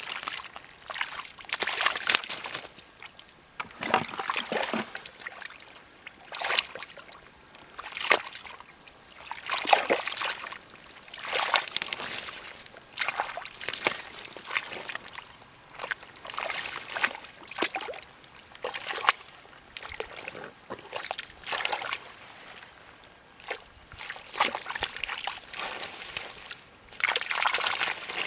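Hands groping and scooping in shallow muddy water among tangled plant stems: irregular sloshing and splashing, about one stroke every second or so.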